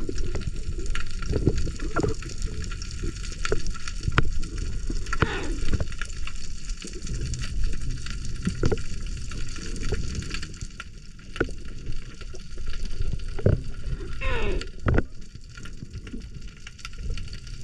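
Sea water heard on a spearfisher's dive camera: a gurgling, crackling wash with scattered sharp clicks, and two falling squeals, one about five seconds in and one later.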